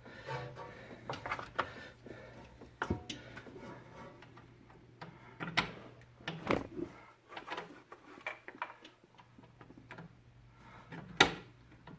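Scattered light clicks and taps of metal fittings being handled as a new stainless steel brake hose is worked into its mounting bracket slot, at irregular intervals with a few sharper knocks. A faint steady hum sits underneath.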